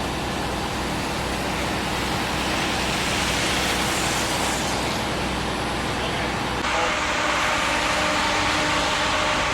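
Steady engine running noise with a constant hum. The sound changes abruptly about two-thirds of the way through to a different steady running noise with clearer humming tones.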